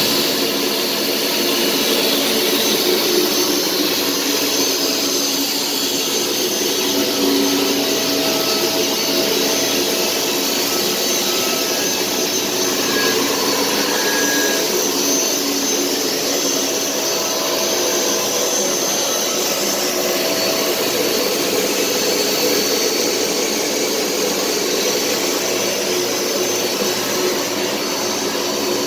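Chemcut XL conveyorized etch line running: a steady, unbroken mechanical whir with a hiss over it.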